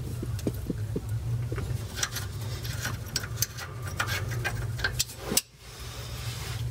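Scattered light metallic clicks and taps of hand work at the steering damper mounting of a 1968 Karmann Ghia's front end, over a steady low hum, with one sharper click about five seconds in.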